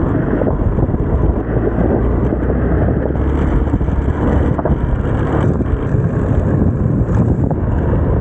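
Motorcycle riding slowly along a gravel road: the engine's steady low running mixed with wind noise on the microphone.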